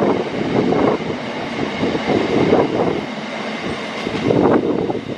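Long freight train of loaded open box wagons running through at speed. Its wheels clatter over the rail joints in clusters about every second or two, with a thin steady high whine above.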